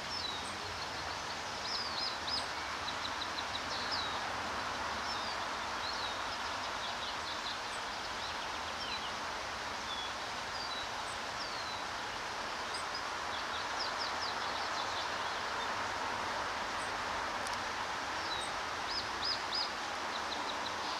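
Several birds chirping and calling, short high notes with quick runs of repeated notes around two seconds in and again near the end, over a steady background hiss.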